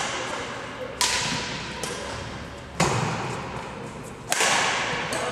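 Badminton rally: shuttlecock struck back and forth with rackets, three sharp hits about a second and a half apart, each ringing out in the echo of a large sports hall.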